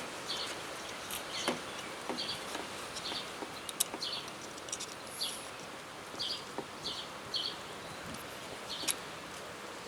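Outdoor ambience: short high chirps repeating irregularly over a steady background hiss, with a few faint clicks.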